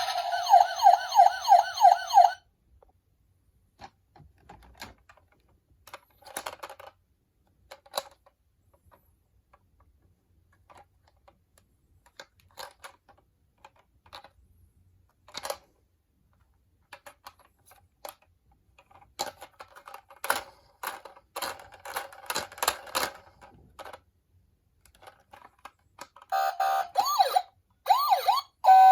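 Electronic toy-car siren warbling rapidly, about three to four wails a second, that stops after about two seconds. Scattered small clicks and rattles of the toy cars follow. A second toy siren with a different sweeping pattern starts near the end.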